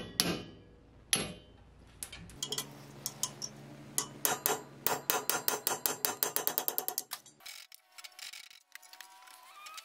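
Hammer striking a steel pin punch to drive the remains of ground-off rivets out of a tractor clutch cover's splined hub, steel ringing on steel. Two single blows come first, then a quick, even run of lighter taps, about five a second, which stops about three quarters of the way through. Faint scraping and clinks follow.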